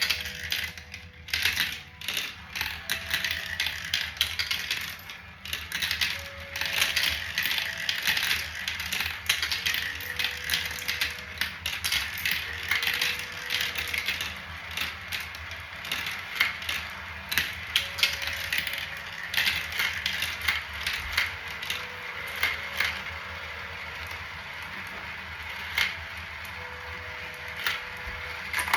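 Marbles rolling and clattering through a homemade marble run: a dense, continuous stream of small clicks and rattles, with short ringing notes now and then.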